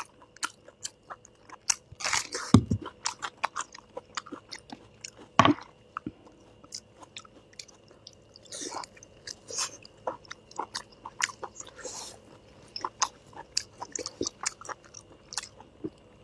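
Close-miked chewing and biting of chewy, glazed fried meat: a steady run of wet mouth clicks and smacks, with a louder thump about two and a half seconds in and another about five and a half seconds in.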